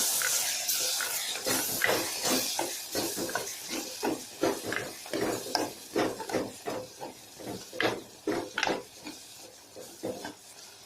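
Tomato and ground herb-leaf mixture sizzling in a pan on the stove while a spatula stirs and scrapes it, in many short strokes. The sizzle is strongest at first and dies down as the wet paste is mixed in.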